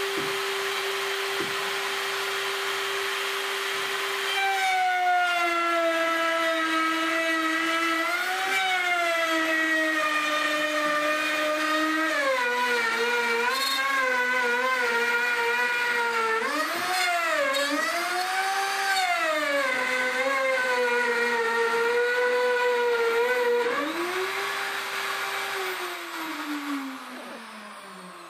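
Compact router cutting a curved line through OSB sheathing. Its motor whine sags and wavers in pitch as it labours through the cut, rises again as the cut finishes, then falls away steadily near the end as it is switched off and spins down.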